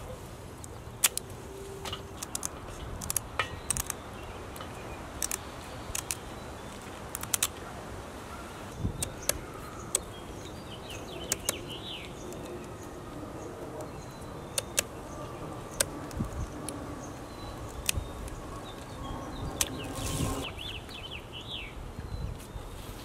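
Kitchen scissors scraping scales off a whole walleye over a stainless-steel basin of water: irregular sharp clicks and scrapes.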